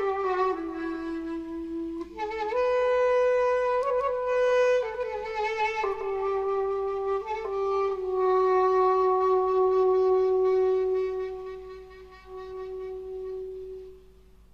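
A solo woodwind instrument plays a slow melody of held, wavering notes, closing on one long low note that dies away near the end.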